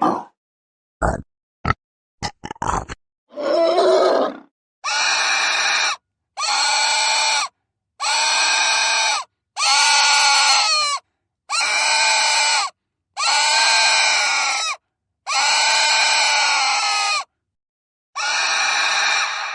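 Pig sounds: a few short grunts, then a run of about eight long, high-pitched squeals, each lasting a second or so, with short silences between them.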